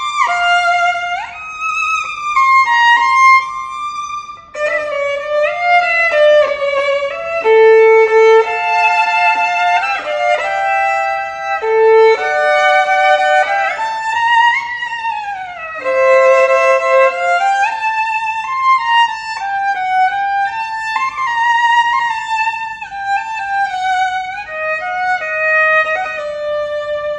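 Solo violin playing a melody of sustained notes, with a few sliding changes of pitch.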